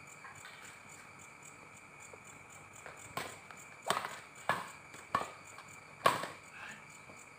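Badminton rally: rackets hitting a shuttlecock five times in quick succession, starting about three seconds in, the last hit the loudest. A faint steady high tone runs underneath.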